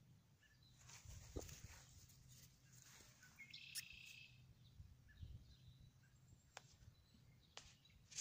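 Faint outdoor quiet with a steady low hum, a few soft rustles and clicks in the grass, and one short high chirp a little before the middle.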